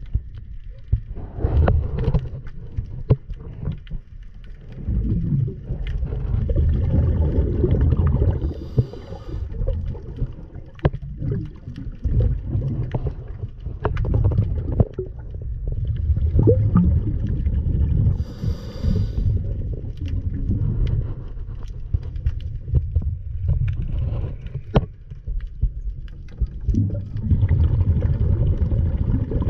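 Muffled underwater rumble and sloshing of a camera moving through water, swelling and fading every few seconds, with scattered sharp clicks and knocks.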